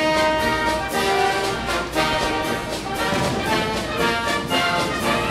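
Brass band playing: held brass chords over a steady beat.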